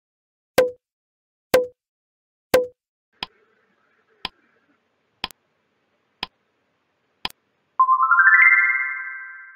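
Quiz-video sound effects: three sharp pops about a second apart as the answer options appear, then five lighter countdown ticks, one per second. Near the end a rising synthesized chime climbs in quick steps and rings on, signalling that time is up.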